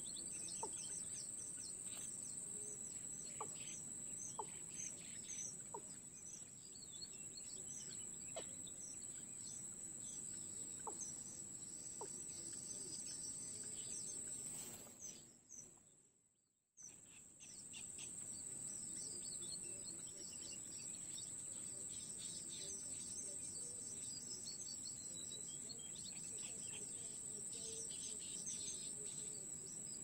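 Outdoor ambience: a steady high-pitched insect drone with many short, high chirps and a few faint ticks. About halfway through, the sound fades away and then cuts back in suddenly.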